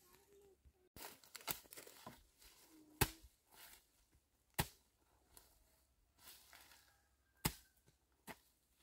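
Rustling and tearing-like noise with several sharp snaps scattered through, the loudest about three seconds in.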